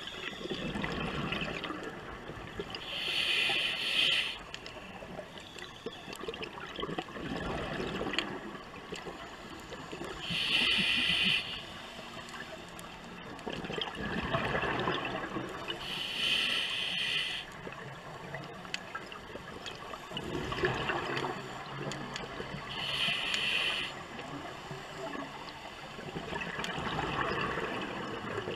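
Scuba diver breathing through a regulator: four hissing inhalations, about six seconds apart, each followed by a spell of exhaled bubbles gurgling up.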